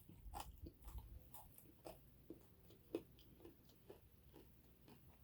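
Faint close-up eating sounds: a person chewing chicken, with irregular soft smacks and small crunches a few times a second.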